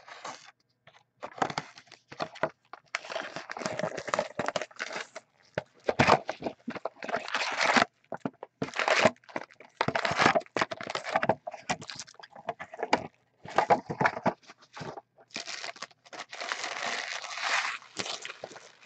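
Foil-wrapped trading card packs and their cardboard box being handled: the box is opened and the packs pulled out and stacked, a string of irregular crinkling and rustling bursts.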